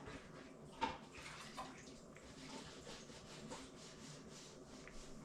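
Faint, irregular wet squishing of hands rubbing barbecue sauce into raw ducks, with one short knock a little under a second in.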